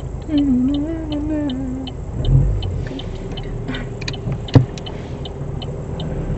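Car turn-signal indicator ticking evenly, a little under three ticks a second, over the steady rumble of the high-mileage car's engine and road noise in the cabin. A wavering tone sounds for about a second and a half near the start, and a single sharp click comes about four and a half seconds in, the loudest sound.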